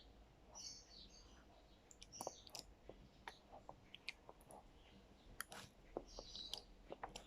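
Faint eating sounds: scattered small clicks and smacks, from a mouth and spoon working at yogurt, with a few brief high squeaks.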